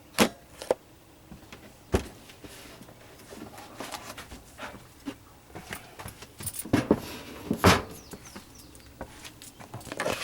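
A plywood cabinet top being lifted off and set aside, with several sharp wooden knocks and clunks and some scraping and rustling between them. The loudest knocks come just after the start and about three-quarters of the way through.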